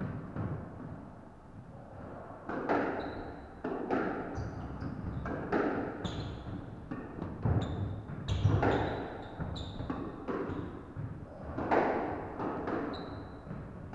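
A squash rally: the ball is struck by the rackets and smacks off the court walls in sharp echoing knocks, about one every half second to a second, starting about two and a half seconds in. Between the hits, shoes squeak briefly on the wooden floor and footsteps thud.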